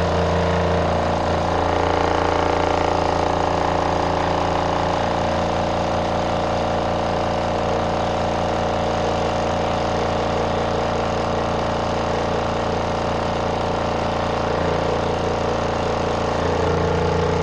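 Spin dryer of a portable twin-tub RV washing machine spinning out a wet load: a steady motor hum, with the vibrating drum knocking lightly against the spin dryer door.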